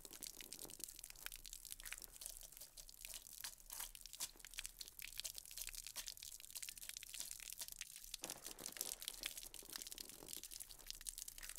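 Dachshund puppy lapping and licking at a thin stream of tap water: a fast, irregular run of faint wet clicks.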